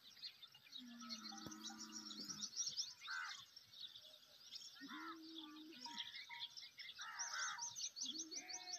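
Small birds chirping busily, with louder bird calls now and then. Two low drawn-out tones from an unseen source, the first about a second in and the second about five seconds in.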